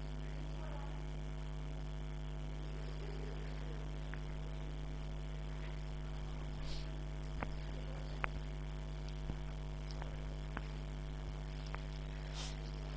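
Steady electrical mains hum with its overtones, a constant low buzz. A few faint clicks fall in the second half.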